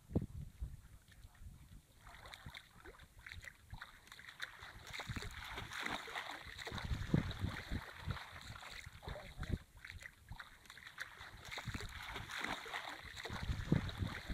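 Shallow river water sloshing and splashing as men wade and drag a fishing net through it, with wind buffeting the microphone in uneven low rumbles.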